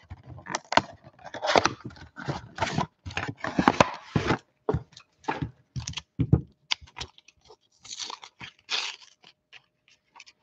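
Retail Panini Mosaic football card box being torn open by hand: a run of irregular rips and scrapes of cardboard, with crinkling as the card packs are handled and pulled out.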